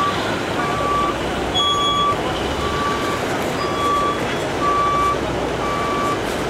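Vehicle reversing alarm beeping steadily, about one half-second beep each second, over steady background noise.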